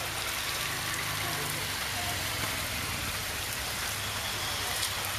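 Steady rain falling on a wet road, with motorcycle engines running low as the bikes roll slowly past; one engine's note fades about two seconds in and another comes up near the end.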